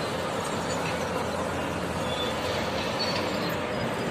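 Steady noise of heavy machinery at an earthworks site: the diesel engines of an excavator and dump trucks running, with city traffic behind.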